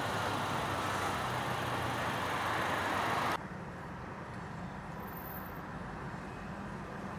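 A car on the move, heard from inside it: a steady rush of road and wind noise. About three seconds in it cuts off and gives way to a quieter, steady low hum of slow traffic.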